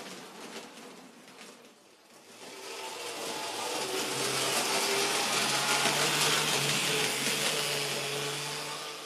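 N-scale model train running past close by: the locomotive's small electric motor humming with a steady whine, and the wheels rattling over the track. It swells from about two seconds in and fades again near the end as the train of tank wagons goes by.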